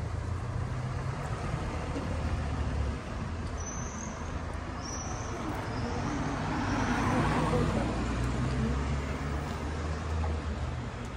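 Cars driving along a town street: a steady low engine hum, swelling as a car passes close about seven seconds in, then easing off. A few short high chirps sound about four to six seconds in.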